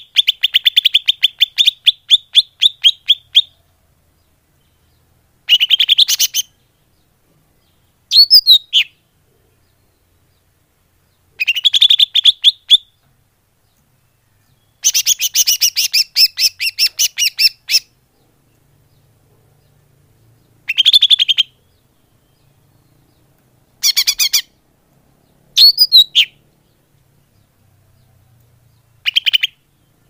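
Leafbird (cucak ijo) lure calls: about nine bursts of rapid chirping, some a quick run of notes lasting two or three seconds, others a single short note, with pauses of a few seconds between them.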